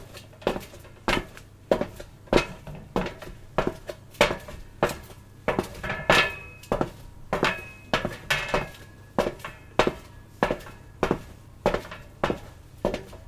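Footsteps on a metal surface at a steady walking pace, about one step every 0.6 seconds, each footfall a sharp clank with a short metallic ring.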